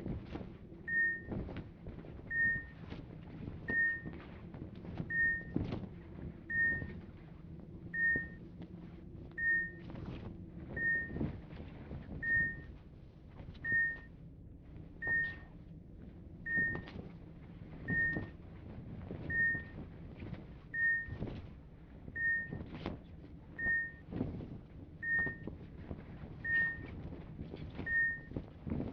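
Hospital patient monitor beeping: a short, high, single-pitched beep repeating evenly about every second and a half. Underneath runs a steady low hum with irregular soft knocks.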